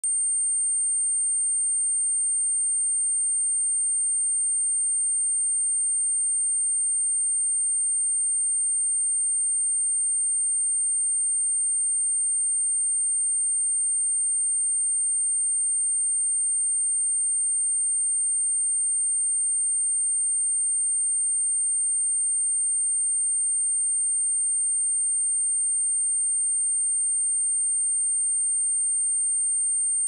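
A single steady, high-pitched 8735 Hz sine-wave test tone, held without change.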